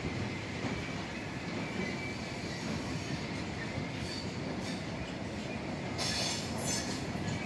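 Goods train of loaded flat wagons rolling past on the rails: a steady rumble and rattle of wheels and couplings, with a brief high wheel screech about six seconds in.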